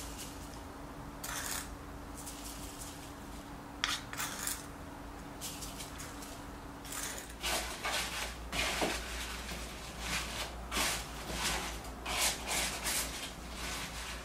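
Napa cabbage leaves being handled in a wooden bowl while being salted: crisp rustles and crunches, sparse at first and busier in the second half. A faint steady hum runs under the first half.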